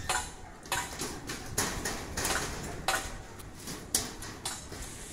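Scattered short knocks and clinks, irregularly spaced about one every half second to a second, some ringing briefly, over a steady low rumble.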